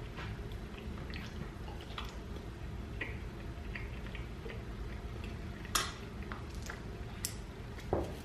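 A fork tapping and scraping on a plate in scattered small clicks as food is cut and picked at. There are a few sharper clicks in the second half.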